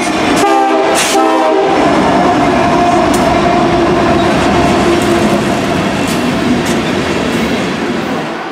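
Diesel freight locomotive sounding its horn once, about half a second in, for roughly a second. Then comes the steady rumble and clatter of the freight cars rolling past.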